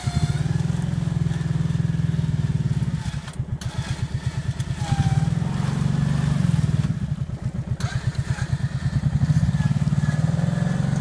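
ATV engine running with a rapid, even firing pulse as the quad winches itself up out of a muddy creek. It eases back twice, about three seconds in and again about seven seconds in, then picks up again.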